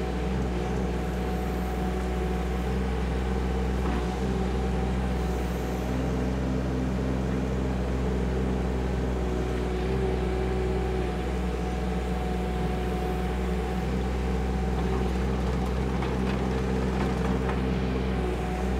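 KYMRON ZX22D mini excavator's diesel engine running steadily as the machine works dirt, with a faint steady whine above the engine note.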